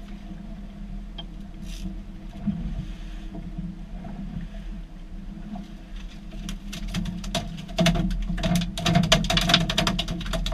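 Twin Honda outboard motors running with a steady low hum. From past the middle, a rapid clatter of clicks and knocks joins in and grows loudest near the end.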